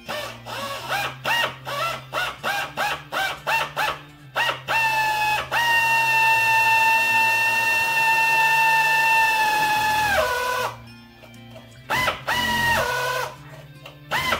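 Pneumatic air drill centred on a rivet head's dimple to drill out a rivet in aluminium aircraft skin: a quick series of short trigger blips with a whine that rises in each, then a steady run of about five seconds that winds down, and two more short blips near the end.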